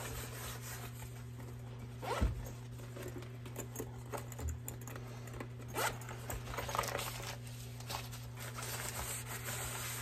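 A zipper on a soft pistol case pocket being worked, with light handling rustles and a few small clicks, over a steady low hum.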